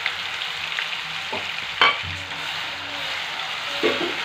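Onion and green chilli paste sizzling in hot oil with whole spices in a frying pan, stirred with a wooden spatula. A sharp knock of the spatula against the pan comes a little under two seconds in, and a lighter one near the end.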